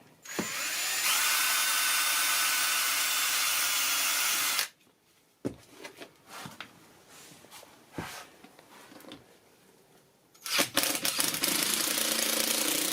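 Power tool running for about four and a half seconds, spinning up at the start and stopping abruptly, then a few sharp knocks and taps, and near the end a power tool starting up again with a steady low hum.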